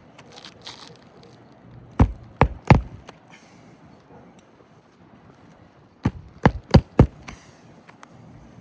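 Hammer driving roofing nails into an asphalt shingle: three strikes about two seconds in, then four more strikes about six seconds in, each about a third of a second apart.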